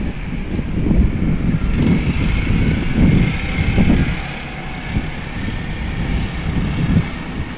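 Wind buffeting the microphone in irregular gusts, over the noise of street traffic; a higher hiss swells for a couple of seconds in the middle.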